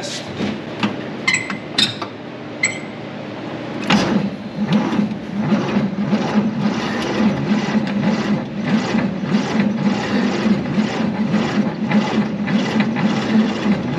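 A 1948 Chevrolet 3100's 216 inline-six being cranked over by its starter without firing: a steady, even churning with about two to three beats a second that starts about four seconds in, after a few sharp metallic clicks. No fuel is reaching the filter yet, so the engine turns but does not catch.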